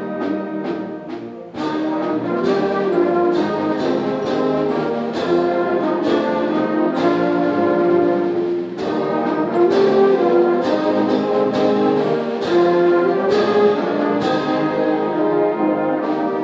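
School concert band playing a march, with brass carrying held notes over regular percussion strokes.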